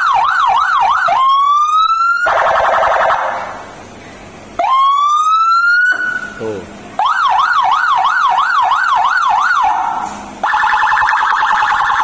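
Landun electronic car siren sounding through its speaker, switching between tones: a fast yelp, a rising wail that cuts off, and a rapid pulsing buzz, each heard twice with short breaks.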